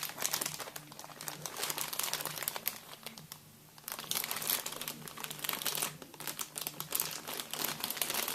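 Plastic packaging crinkling and rustling as cables and parts are rummaged through by hand, with a brief lull a little past three seconds in.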